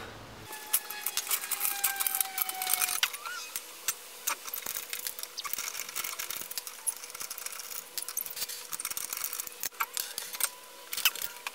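Irregular metallic clicks and clinks of a wrench and wheel bolts being undone on a BMW E46 wheel hub.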